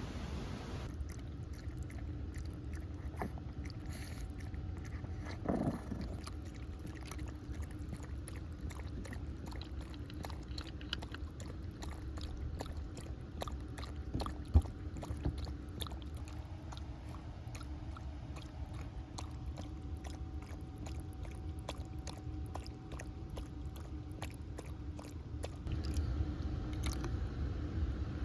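A dog chewing and crunching, heard as a dense run of small crisp clicks over a low steady rumble, with one sharper knock about halfway through.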